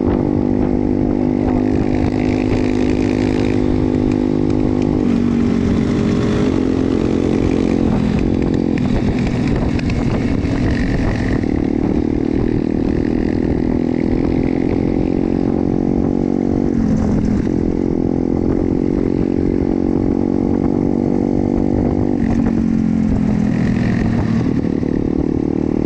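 Pit bike's single-cylinder engine running under way, the revs dipping and climbing back again several times as the rider shifts and works the throttle.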